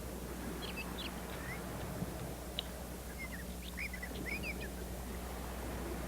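Faint scattered bird chirps, short quick notes in two loose clusters, over a steady low electrical hum.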